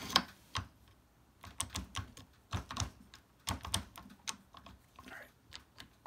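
Key blank in an impressioning grip, seated in an old Corbin wafer padlock and rocked back and forth to raise marks on the blank. It gives irregular small clicks and knocks of metal on metal, in short clusters.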